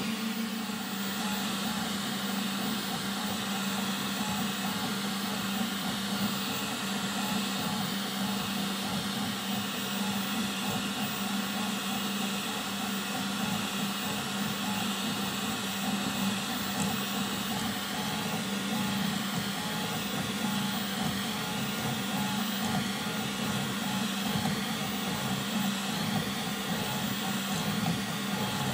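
xBot FDM 3D printer running a print: a steady fan hum with the stepper motors whining over it, their pitch wavering up and down as the print head moves.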